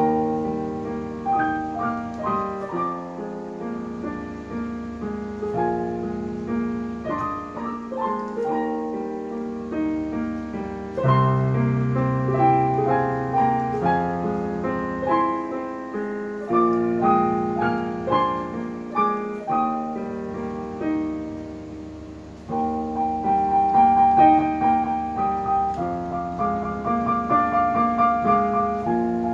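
Digital piano playing a solo piece, a melody over held chords. The playing steps up in loudness about eleven seconds in and again later on.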